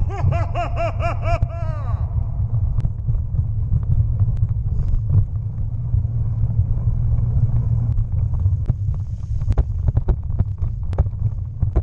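Bicycle ridden along a rough tunnel towpath: a steady low rumble of tyres and wind on the camera microphone, with scattered clicks and rattles from bumps. A wavering, pulsing pitched sound fades out about two seconds in.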